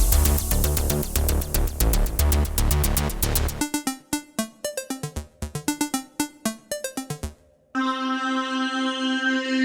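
Background electronic music. A steady beat with deep bass gives way, a little over three seconds in, to quick plucked notes. After a brief gap near the end, a held chord begins.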